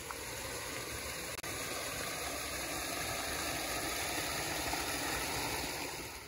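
Water of a small creek running, a steady rushing that drops away near the end.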